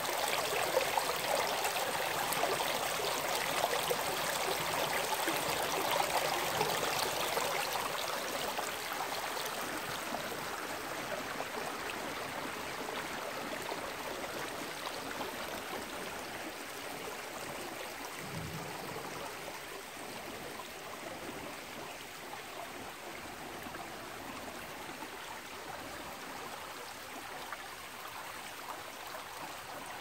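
Shallow mountain stream running over rocks: a steady rush and splash of water. It is loudest for the first several seconds and then grows gradually softer, with one brief low thump about eighteen seconds in.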